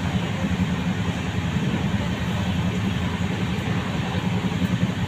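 Steady low rumble of a train, with no breaks or changes.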